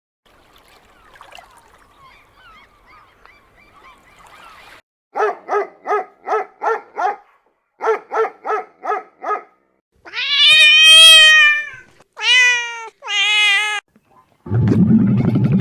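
A domestic cat meowing: three drawn-out meows about ten seconds in, the first the longest and loudest. They follow two quick runs of short, evenly spaced calls, with faint chirping before that.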